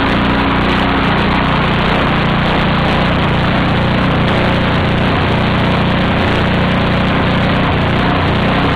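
Small generator engine running steadily, fed on gasoline vapour misted by an ultrasonic transducer, with HHO gas added to the intake.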